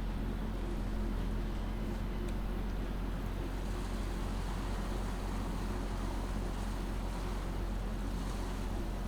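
Steady low rumble and hiss of outdoor ambience, with a machine-like hum that fades out about three seconds in.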